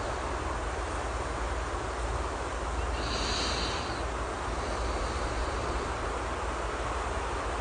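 Steady rain ambience, with a sleeping person's soft breath hissing briefly about three seconds in, between snores.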